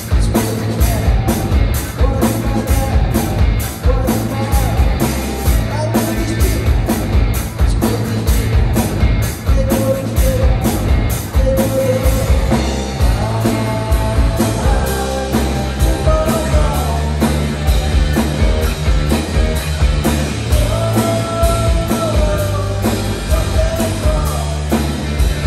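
Live rock band playing: electric guitar, bass guitar and drum kit, with steady cymbal strokes that drop out about halfway through.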